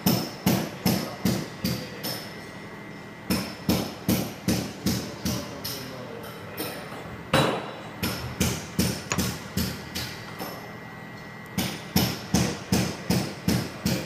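Hammer blows on the top plate of a hand-operated guide-pillar stamping die for gold lobster clasps, sharp ringing metal strikes in quick runs of several, about three a second, with short pauses between. The blows drive the punch down to stamp and form the clasp blanks loaded in the die.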